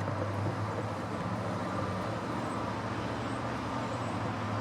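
Steady low rumble of vehicle noise with a faint constant hum, unchanging throughout.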